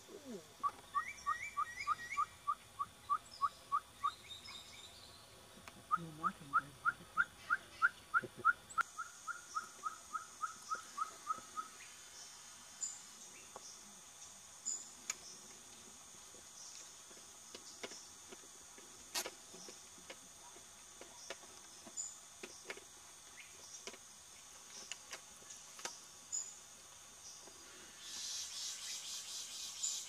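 Citreoline trogon calling: a series of short, evenly repeated notes, about four a second, given twice, the second series longer. After that only faint, scattered high chirps, and near the end a high buzzing for a couple of seconds.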